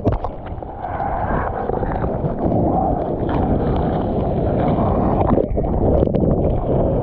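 Seawater rushing and sloshing close to the microphone, with wind buffeting it.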